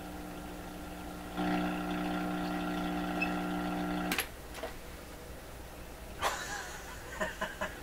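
Steady electrical hum from a Conar signal tracer's speaker, listening on test leads across a capacitor under test on a Heathkit condenser checker. The hum steps louder about a second and a half in, then cuts off with a click about four seconds in as the checker's knob is turned. A second click comes about two seconds later.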